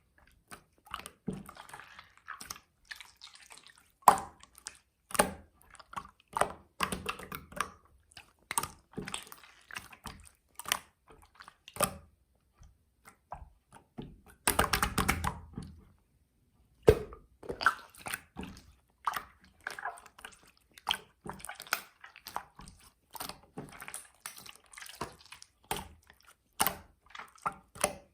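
Clear slime being squished and pressed by hand, making irregular sticky clicks and small wet pops, with a denser stretch of squelching about halfway through.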